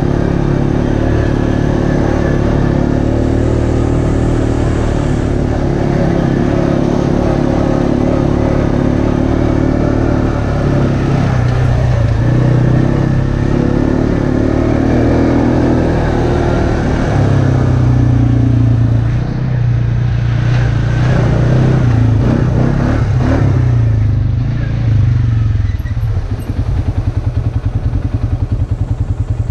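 ATV engine running under way on a dirt trail, its pitch rising and falling with the throttle. Near the end it settles into an even, pulsing idle.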